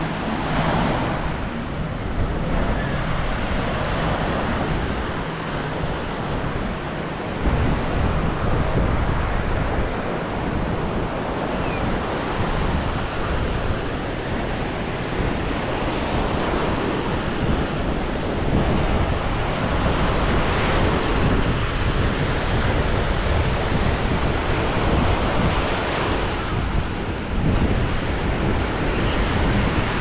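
Surf breaking and washing up a sandy beach, swelling every few seconds, with wind buffeting the microphone as a steady low rumble.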